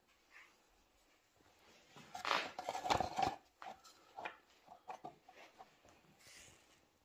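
Soft knocks, clatter and light taps of handling, loudest about two to three seconds in, then a few scattered light taps.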